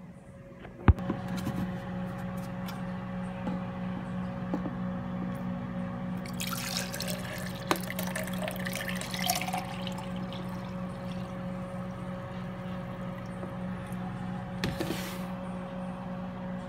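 Lemonade poured from a plastic pitcher into a plastic cup for about three seconds, with a shorter splash near the end. A steady low hum runs underneath, and a sharp click sounds about a second in.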